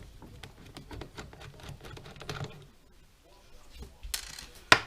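Small clicks and taps of hands working the plastic wheel and hub off a 1/14 scale RC trailer, with a short rustle and then a sharp click near the end.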